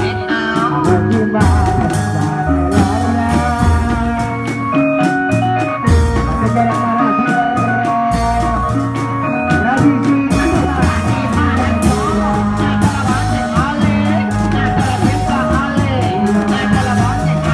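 Dangdut-style music: a singing voice and a wavering melody over a steady, pulsing low beat.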